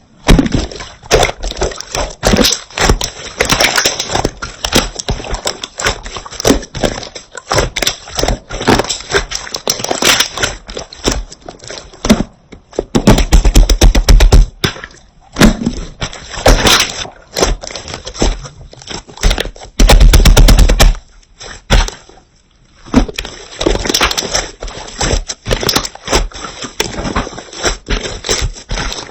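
Slime being squeezed and poked by hand, making dense runs of sharp crackling clicks and pops, with two louder stretches of pressing near the middle.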